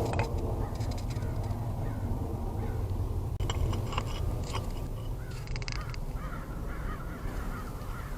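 Birds calling over a steady low rumble.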